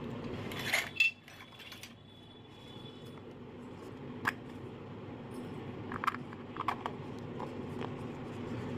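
Small plastic toy cooking pot and lid being handled: a few light, sharp plastic clicks and taps as the lid is fitted, the loudest about a second in. A steady low background rumble runs underneath.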